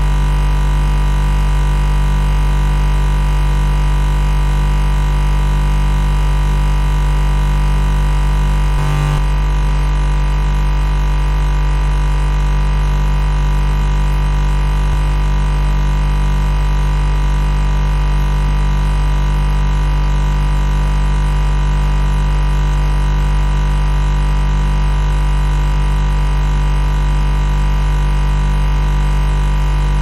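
Refrigerator compressor running with a loud, steady hum: a deep low drone with many steady overtones above it. About nine seconds in there is a brief blip, and the faint high hiss drops away.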